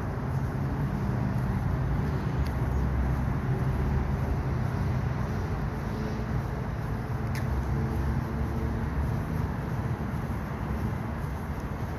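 Steady road traffic rumble with a vehicle engine's low hum, and two faint clicks.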